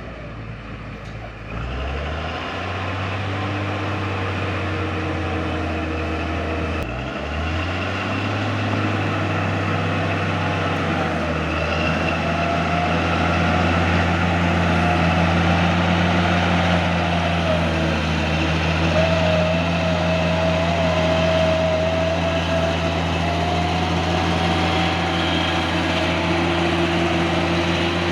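Cat D6G bulldozer's six-cylinder diesel engine running under load, its pitch stepping up about two seconds in and again near seven seconds, with a wavering high whine over it in the second half.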